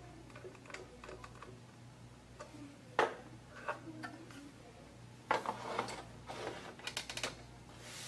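Small clicks and taps of a screwdriver and a laptop drive bracket being handled on a wooden table, with one sharp click about three seconds in and a quick run of clicks and rattles a little after the middle.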